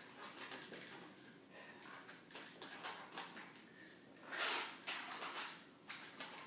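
Slow, effortful walking in full-length leg braces with forearm crutches on a laminate floor: crutch tips tapping and braced shoes scuffing and dragging, with the longest and loudest scrape about four and a half seconds in.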